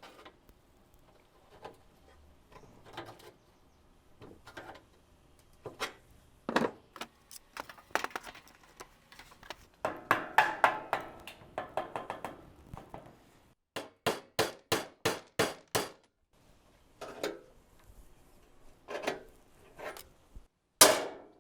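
Scattered clinks and knocks of hand tools working a sheet-metal rain gutter and wooden divider blocks as the gutter is bent with needle nose pliers and clamped. About two-thirds of the way through comes a quick run of about eight even, sharp clicks.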